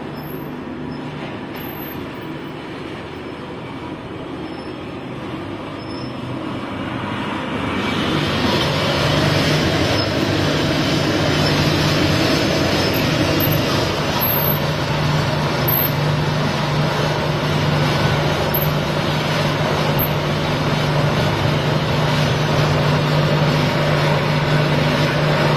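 Stainless-steel peanut powder grinding machine running with a steady low hum. About eight seconds in it grows louder and fuller as material is fed through and ground into powder, then runs steadily.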